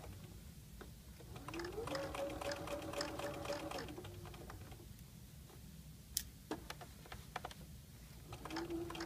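Electric sewing machine stitching a seam in a short burst: the motor whines up, runs about two seconds with the needle ticking rapidly, and winds down. A few sharp clicks follow, then a brief, slower run near the end.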